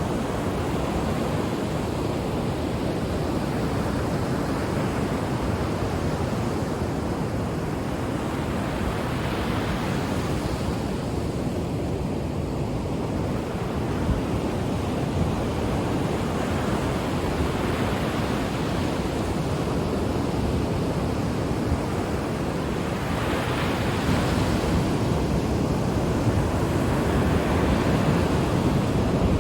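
Ocean waves breaking and washing up the shore: a steady rush with a brighter surge every several seconds, growing a little louder near the end.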